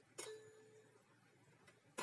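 Mostly near silence, with a click just after the start followed by a short, steady, even-pitched tone.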